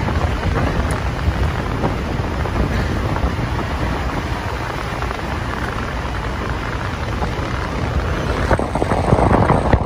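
Vehicle driving along a road: a steady low rumble under wind rushing across the microphone. The wind buffeting gets louder and rougher about eight and a half seconds in.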